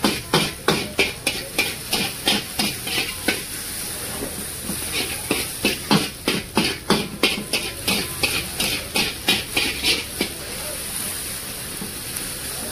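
Metal spatula scraping and knocking against a large metal wok in quick regular strokes, about three a second, as sliced onions and green capsicum are stir-fried over a steady sizzle. The strokes pause for a second or so about a third of the way in, then stop near the end, leaving only the sizzle.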